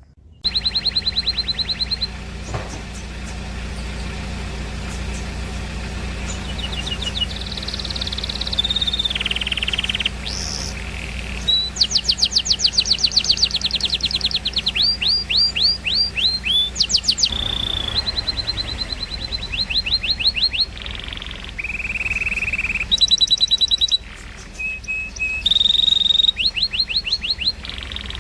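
Canary and lovebird song: fast trills of rapidly repeated high notes, short held whistles and chattering runs, changing every second or two without a break. A low steady hum sits underneath.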